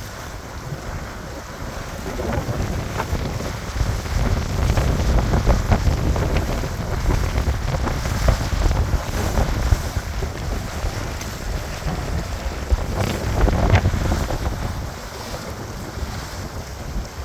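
Wind buffeting the microphone over water splashing and rushing along the hull of a small daysailer under sail. It is louder from about two seconds in and eases near the end.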